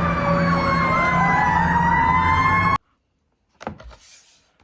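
Fire truck siren: several overlapping siren tones gliding slowly up and down in pitch over a low steady hum, cutting off suddenly about three seconds in.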